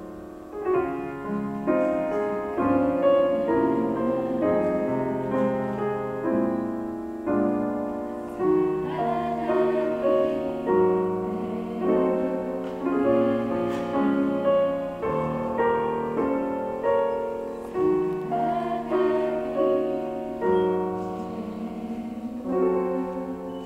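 Grand piano played solo in a slow, flowing passage of chords and melody, each note struck and left to ring and fade, the playing thinning out and dying away near the end.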